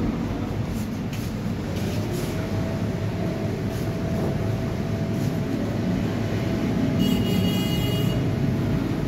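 Steady low mechanical rumble, with a faint steady whine joining about two seconds in and a brief high-pitched trill about seven seconds in.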